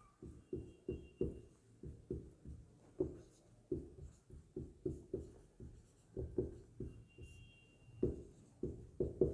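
Marker pen writing on a whiteboard: a quick run of short strokes, about three a second, with now and then a faint high squeak of the tip.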